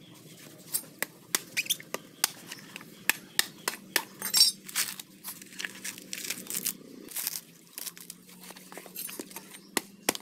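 Dry coconut husk being pulled apart by hand, the coir fibres tearing and snapping in irregular crackles and sharp clicks.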